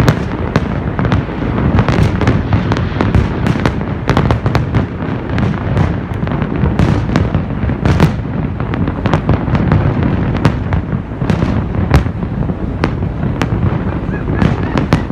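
Fireworks display going off continuously: a dense, rumbling barrage of booms with many sharp cracks and pops overlapping throughout.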